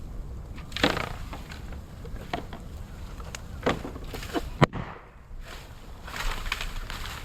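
Moso bamboo burning in an open fire, crackling with irregular sharp pops. One loud, sharp crack comes about four and a half seconds in.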